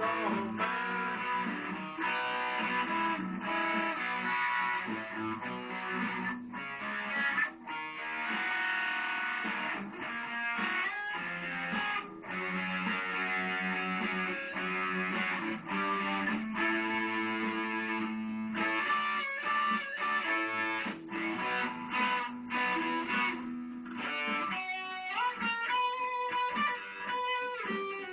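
Electric guitar playing an instrumental melody of held notes, turning into a quicker run of notes with string bends in the last few seconds.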